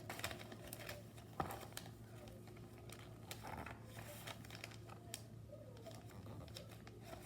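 A square sheet of paper being folded and creased by hand: faint crinkling and rustling with scattered small clicks, one sharper tap about one and a half seconds in, over a faint steady hum.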